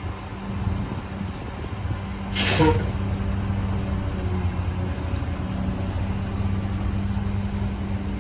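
Mack LR garbage truck with McNeilus rear-loader body running with a steady low engine hum, and a short sharp air-brake hiss about two and a half seconds in.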